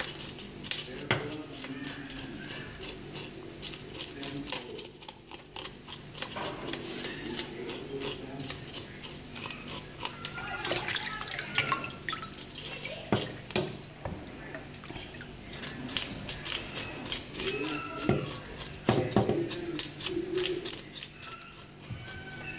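A knife blade scraping scales off a whole red fish, giving rapid, irregular scratchy clicks. Water in a plastic tub in a metal sink splashes and drips now and then.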